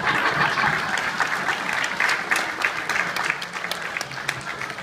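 An audience clapping, starting all at once and slowly tapering off.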